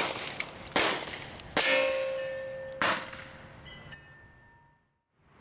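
Four pellet shots in quick succession from an Evanix VIPER semi-auto PCP air pistol, under a second or so apart. Each is a sharp crack with a metallic, ringing clang that dies away after it.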